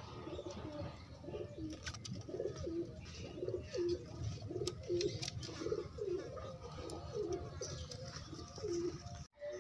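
Domestic pigeons cooing: more than a dozen short, low coos, one after another, over a steady low background rumble. The sound cuts off abruptly near the end.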